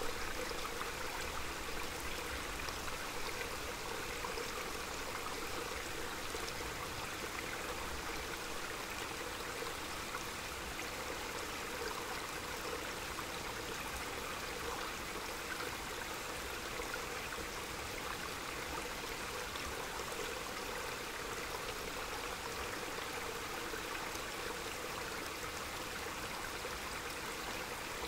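Small mountain stream running, a steady, unbroken rush and babble of water.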